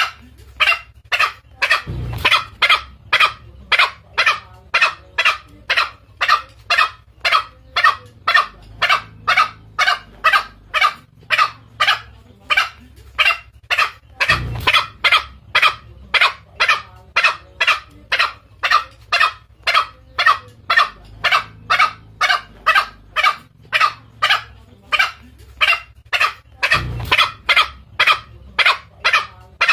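Green junglefowl calls played as a hunting lure: short calls repeated steadily, about two to three a second, meant to provoke a male into coming in. A low thump comes three times, about twelve seconds apart.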